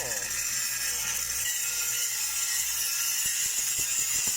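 Shielded metal arc (stick) welding arc, hissing and crackling steadily as a downhill pass is run on steel pipe.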